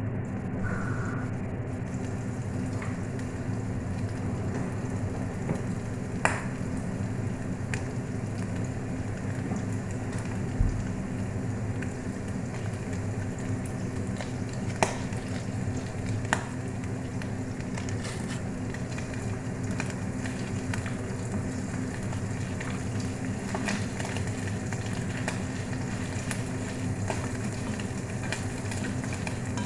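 Food sizzling in a cooking pot, with a few sharp clicks of a utensil against the pot and a steady low hum underneath.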